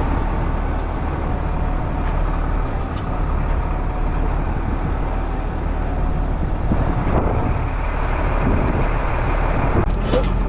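Farm tractor engine running steadily, with a few short metal knocks near the end.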